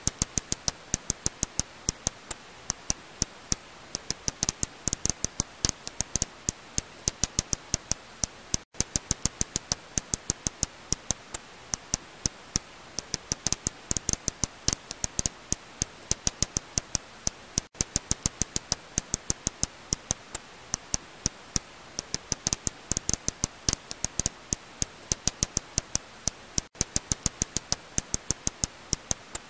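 Serotine bat echolocation calls, made audible as rapid dry clicks over a steady hiss, coming several a second in irregular runs. The sound breaks off for an instant about every nine seconds.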